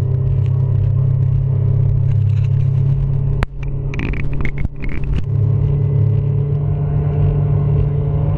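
Speedboat engine running at low speed with a steady low rumble. A few short knocks or slaps come through about four to five seconds in.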